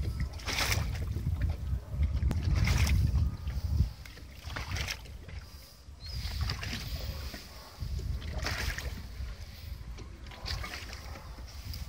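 Water swishing and slapping against a motorboat's hull about every two seconds, over a low rumble that is loudest in the first four seconds.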